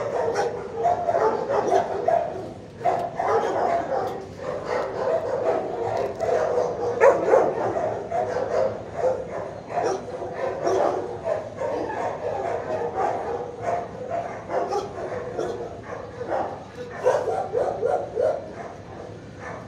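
Kenneled shelter dogs barking and yipping, the barks overlapping with no break.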